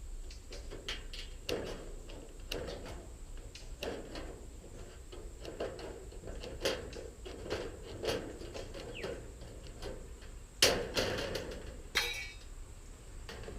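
Thin metal trim being cut and worked by hand: a run of short clicks and clanks, with two louder knocks near the end.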